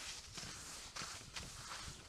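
Skis sliding over packed snow: a steady hiss broken by a few short, sharper scrapes as the edges bite.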